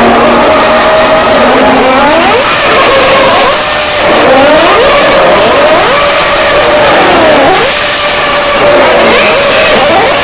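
Formula 1 cars racing past at high revs, several engines overlapping, their pitch sweeping up and down as they accelerate, shift and pass.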